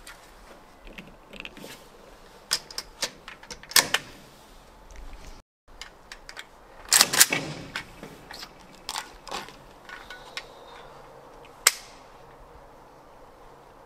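Cartridges being pressed one by one into a Kalashnikov rifle magazine: a string of sharp, irregularly spaced metallic clicks, with a louder cluster about seven seconds in.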